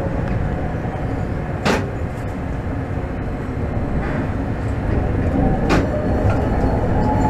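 Tokyo Toden Arakawa Line streetcar running along its track, heard from inside the car: a steady rumble with two sharp clacks as the wheels pass over rail joints. A thin whine rises slowly in pitch in the last couple of seconds.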